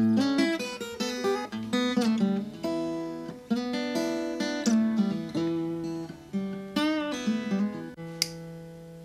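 Solo acoustic guitar played with a picked melody over ringing chord notes, with a wavering bent note about seven seconds in.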